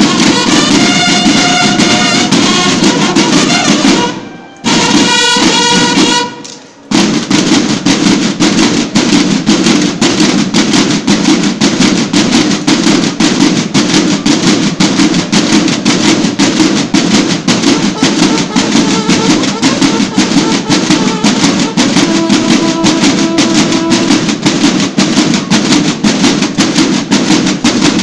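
A military bugle and drum corps (banda de guerra) playing. Bugles sound held notes, cut by two short breaks about four and six seconds in. From about seven seconds in, a massed section of field drums beats a fast, steady rhythm, with a few more bugle notes near the end.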